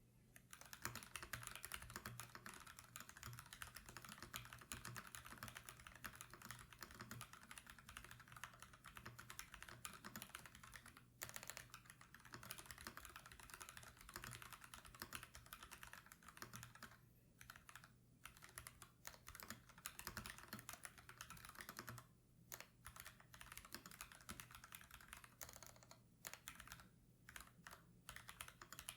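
Typing on a Keydous NJ68 mechanical keyboard fitted with stock, unlubricated FFFF 62 g linear switches. The keystrokes come fast and dense, broken by a few short pauses.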